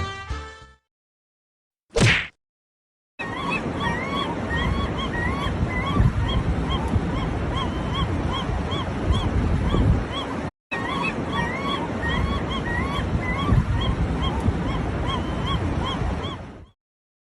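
A bird giving short, repeated honk-like calls, about two a second, over a steady rushing noise; the sound cuts out briefly near the middle. A short whoosh sounds about two seconds in, after music fades out at the start.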